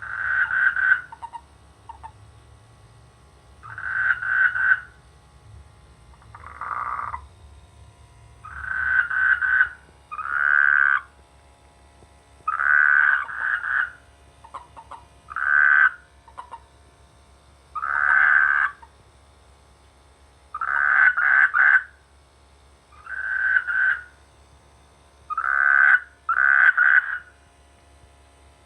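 Frogs croaking their mating calls, one call about every two seconds. Each call lasts about a second, and some come in quick pairs.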